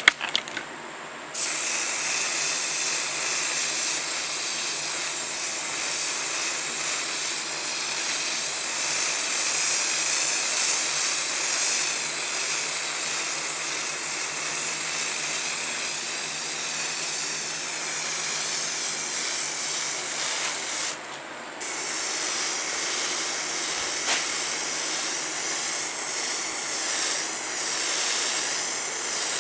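Aerosol spray paint can spraying in a long, continuous hiss, stopping briefly about two-thirds of the way through and then spraying again.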